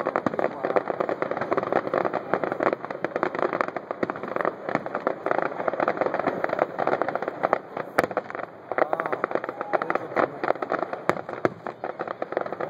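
Fireworks display: a continuous, rapid crackling of many small pops, with a couple of sharper single bangs about eight and eleven seconds in.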